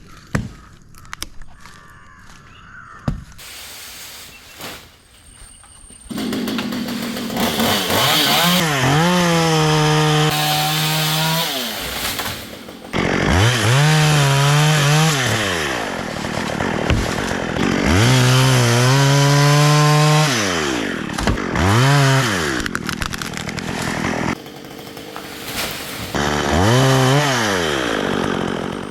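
Stihl chainsaw starting up about six seconds in, then revved up hard and dropped back about five times in bursts of one to two seconds as it cuts into jackfruit tree wood. A few sharp knocks come before it starts.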